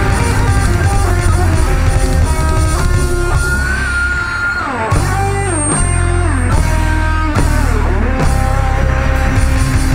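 Live cumbia band playing an instrumental passage: a lead melody whose notes slide down in pitch twice, over a steady bass and drum beat.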